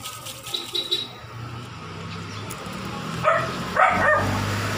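A dog barks twice, short sharp barks about half a second apart near the end, over a steady low engine hum that builds from about a second and a half in.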